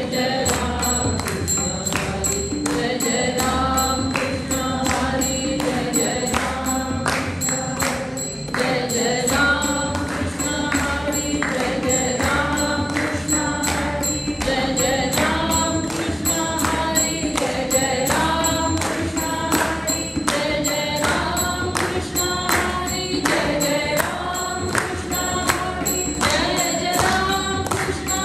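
A woman singing a devotional bhajan into a microphone, accompanied by tabla played in a steady rhythm.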